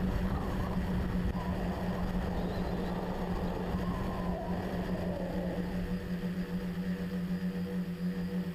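Tricopter's electric motors and propellers droning steadily in flight, as picked up by the onboard camera's microphone. A rushing noise over the drone eases off after about six seconds.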